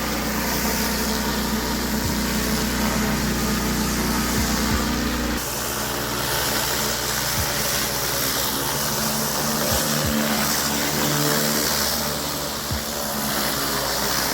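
Pressure washer engine running steadily under the hiss of high-pressure water spraying a paver driveway. The sound changes abruptly about five seconds in.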